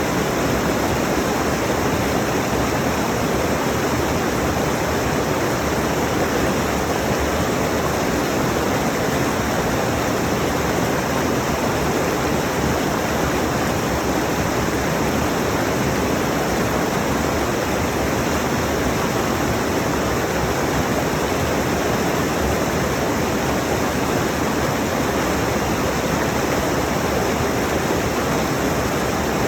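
Rushing mountain stream: water tumbling over rocks in a steady, unbroken rush.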